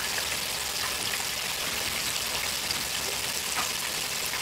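Pork chops deep-frying in oil at 375 °F in a Proctor Silex electric deep fryer: a steady bubbling sizzle with a few faint crackles.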